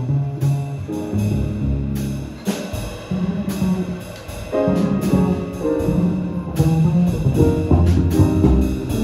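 Jazz big band playing an ensemble passage, brass to the fore, with sustained chords over bass and drums; it eases off briefly around the middle, then builds louder.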